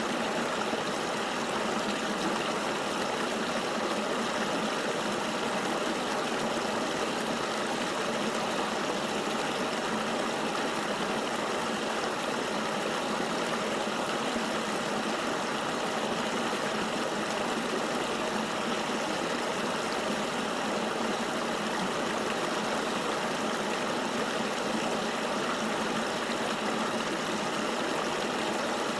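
Steady rush of a flowing river, even and unchanging, with little deep rumble.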